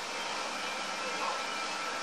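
Steady hiss of background noise with no distinct event.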